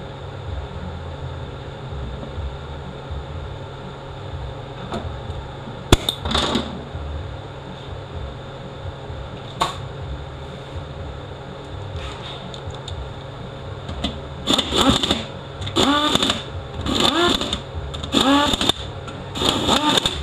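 A hand-held power tool spinning up and down in short bursts, about one a second, through the last six seconds, over a steady low shop hum; a couple of single sharp clicks come earlier.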